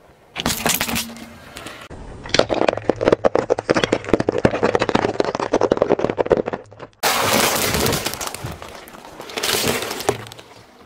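A car tyre rolling slowly over brittle objects on asphalt and crushing them, in several short edited cuts. About two seconds in, a dense run of rapid cracks and crunches from hard candy shattering under the tyre lasts about five seconds, then a rougher crushing noise follows.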